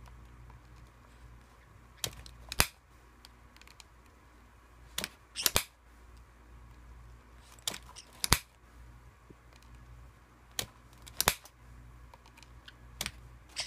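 Metal kiss-lock clasp of a coin purse being snapped open and shut by a white-bellied caique's beak. There are five bursts of sharp metallic clicks about three seconds apart, each a lighter click followed by a louder snap.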